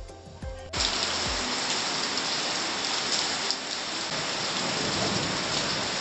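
Heavy rain pouring down onto concrete and a wet floor: a steady, even hiss of drops that starts suddenly under a second in, as background music with a bass beat stops.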